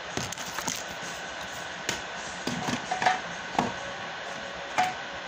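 Irregular light knocks and clicks, about ten in all, over a steady hiss.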